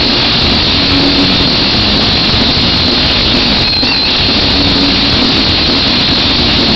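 Live horror-punk band and arena crowd, a loud, steady wall of distorted guitar and drum noise with faint held low notes, overloading the handheld recorder's microphone.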